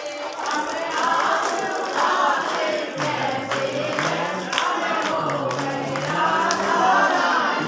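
A group of people singing a devotional song together, many voices over crowd noise, with a low voice holding long steady notes from about three seconds in.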